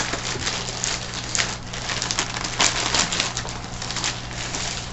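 Plastic packaging rustling and irregular clicks and knocks as a wireless keyboard is taken out and handled, over a steady low hum.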